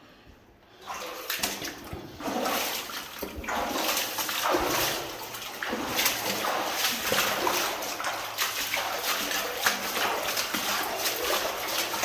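Water splashing and sloshing in irregular surges, as a person wades along a narrow, wet mine passage (a coffin level).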